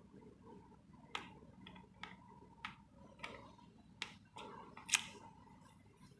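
Small clicks and taps of a borescope's camera-tube plug being pushed into the monitor's socket and its knurled threaded collar turned by hand, about six separate clicks with the loudest near the end. A faint steady whine runs underneath.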